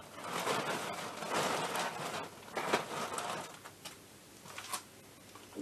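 Rustling of someone rummaging through parts and bags, with a few light clicks; it goes quieter after about three and a half seconds.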